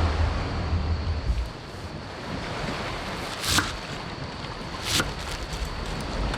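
Wind and sea surf. Gusts buffet the microphone with a low rumble for the first second and a half. Two sharp clicks come about a second and a half apart in the second half.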